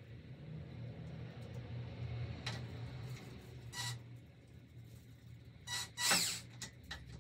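Cordless drill whirring in several short bursts as it drives a screw into a wooden shelf upright; the loudest burst comes about six seconds in.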